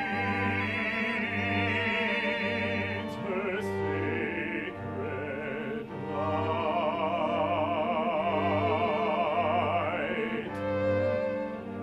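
Operatic singing with wide vibrato over a bowed-string accompaniment, with a low note repeating steadily about once a second.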